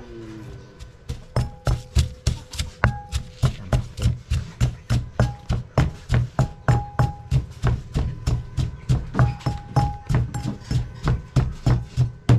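Rapid, steady chopping with a knife on a wooden cutting board, about three to four strikes a second, as the seasoning herbs are minced. It starts a little over a second in, and some strikes leave a short ringing tone.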